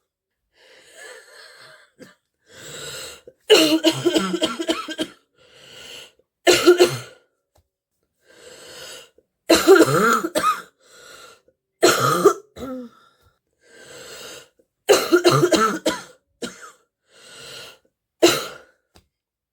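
A girl with a chest cold coughing in fits of deep, barking coughs, about six bouts of several coughs each, with quieter breaths drawn in between.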